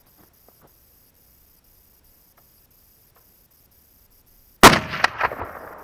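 A single shot from a .30-06 Remington 710 bolt-action rifle fitted with a clamp-on muzzle brake, sudden and very loud, about four and a half seconds in, echoing back and dying away over about a second. Before it, only a few faint ticks.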